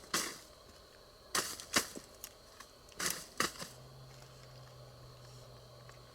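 About half a dozen sharp crackles and rustles scattered over the first few seconds, then a faint steady low hum.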